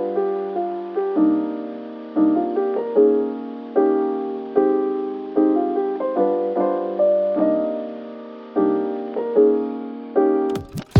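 Background music: a soft electric-piano chord pattern, each chord struck and fading away. Near the end it drops out briefly.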